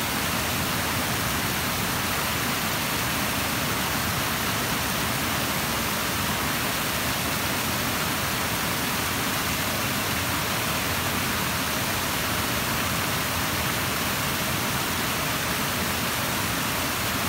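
Steady rushing-water hiss, even and unbroken throughout.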